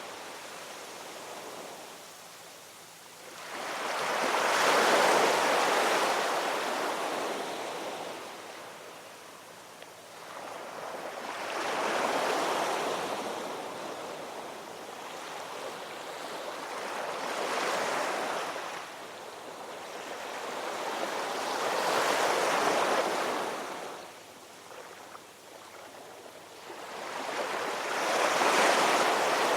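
Ocean surf: waves break and wash in about every five to six seconds, five surges in all, with a steady hiss of water between them.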